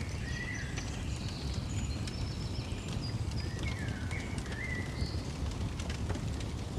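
Birds singing in short whistled phrases, one near the start and another about four seconds in, with higher twittering between them. Under the birds a fire crackles steadily, with scattered sharp pops.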